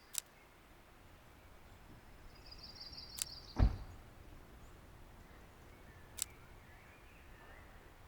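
Faint outdoor ambience with a few high bird chirps, a short sharp click about every three seconds, and one deep thud about three and a half seconds in, the loudest sound.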